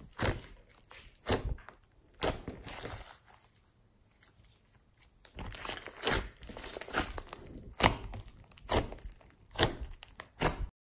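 Slime being squished, stretched and pressed by hand, giving irregular sticky snaps, pops and crackles, with a quieter spell between about two and five seconds in.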